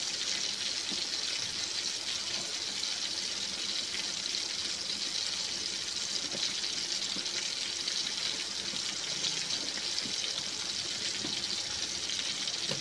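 Battered frog pieces frying in hot oil in a pan: a steady, high sizzle with faint scattered crackles.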